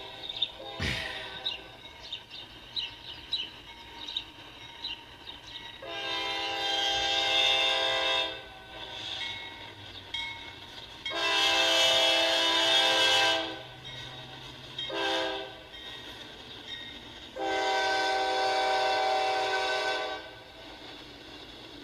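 Freight locomotive air horn sounding the grade-crossing signal: two long blasts, a short one, then a long one, each a chord of several steady tones. Before the horn, birds chirp over the low rumble of the train.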